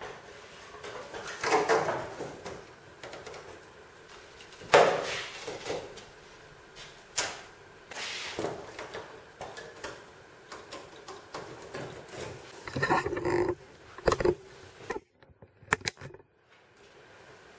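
Handling noise from thin plywood kayak hull panels being fitted together: scattered knocks, scrapes and rustles of wood at irregular intervals, with a brief drop-out near the end.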